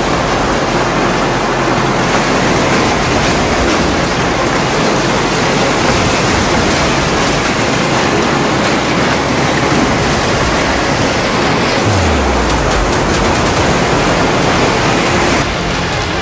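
Severe hailstorm: hailstones and heavy rain striking the ground, a dense, steady rush of noise. About fifteen seconds in it drops a little and turns lighter.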